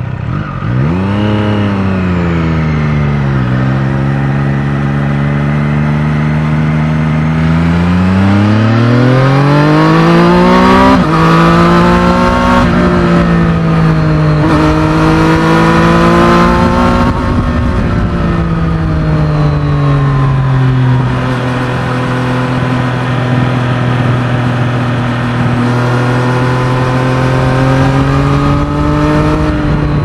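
Triumph Street Triple 765 RS's three-cylinder engine under way from the rider's seat. The revs climb and drop sharply at each gear change, ease off in the middle, and climb again near the end.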